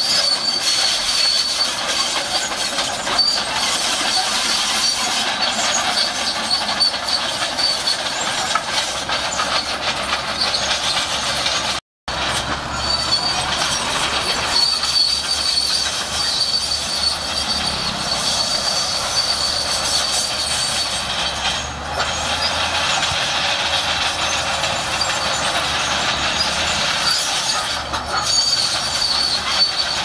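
Shantui SD16 crawler bulldozer working, its steel tracks squealing with a high whine that comes and goes over a steady clanking rattle. The sound drops out for an instant near the middle.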